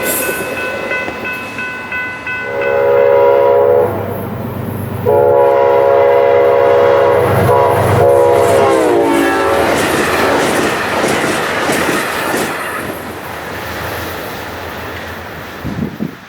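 Locomotive air horn sounding a short blast and then a long one, its pitch dropping near the end of the long blast as the train passes, over the loud rumble and wheel clatter of the moving train.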